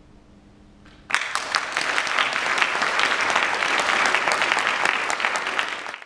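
The last piano chord dies away faintly, and about a second in an audience bursts into steady applause with dense hand-clapping. The applause then cuts off abruptly.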